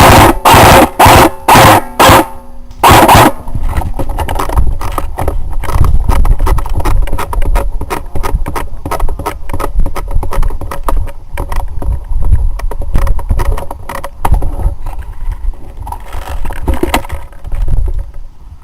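Airsoft gun firing several short, loud bursts over the first three seconds. After that comes a steady low rumble crowded with small clicks, like handling and movement noise on a gun-mounted camera.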